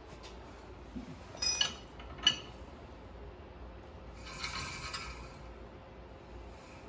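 Metal parts clinking against each other twice, sharp and ringing, then a rattling scrape of about a second. This is a spindle nut being handled and threaded onto the front wheel spindle at the centre of a disc brake hub.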